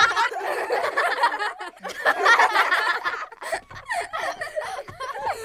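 A person chuckling and snickering, in short uneven laughs.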